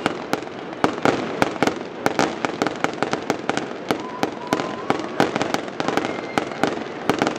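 Fireworks fired from a bell tower: a rapid, irregular run of sharp bangs and cracks, several a second, over continuous crackling and sputtering of sparks.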